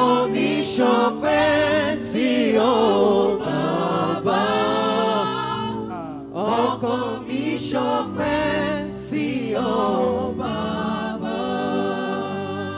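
Gospel worship music: voices singing a melody over sustained instrumental backing, with a brief pause in the singing about six seconds in.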